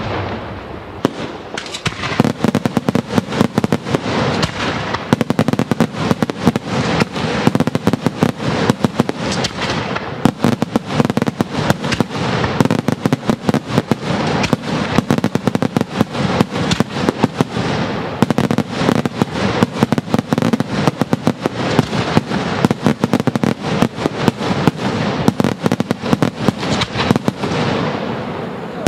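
Daytime fireworks: aerial shells bursting overhead in a dense, continuous barrage of bangs, many a second, after a short lull at the start.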